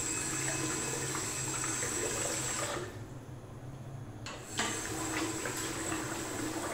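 Water running from a bathroom tap into the sink while the face is rinsed after shaving. It drops away about three seconds in and starts again suddenly a second and a half later.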